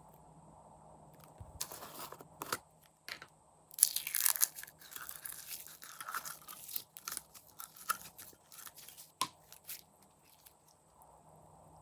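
Slime being squished and mixed by hand, giving a run of crackling pops and clicks, densest a few seconds in.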